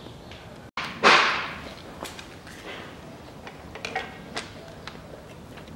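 Plastic timing-belt cover on a Toyota 3S-FE engine being pulled off by hand: a loud scraping rasp about a second in, then scattered light clicks and knocks as the cover is worked loose.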